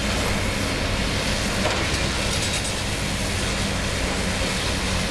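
Liebherr 954 long-front demolition excavator running steadily, its diesel engine's low hum under a dense rattling noise of machinery at work.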